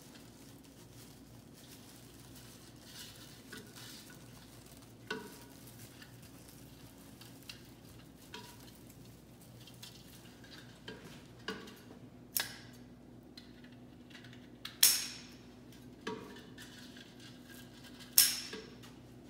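Faint rustling and handling of a wired ribbon bow and artificial pine garland, with scattered small clicks and two sharper crackles, one about two-thirds of the way through and one near the end.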